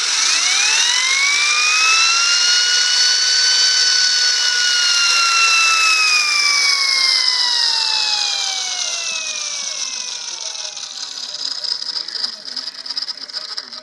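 Vintage Marx Fire Chief toy car's siren: a wail that climbs in pitch over the first two seconds, holds, then slowly falls over the next eight. It sits over a steady whirring, rattling mechanism noise that carries on after the wail has faded.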